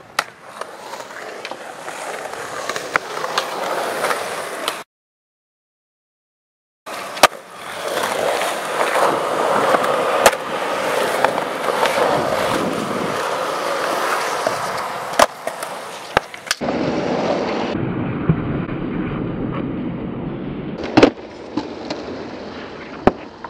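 Skateboard wheels rolling on smooth concrete, with sharp board clacks from pops and landings every few seconds. The sound drops out completely for about two seconds about five seconds in.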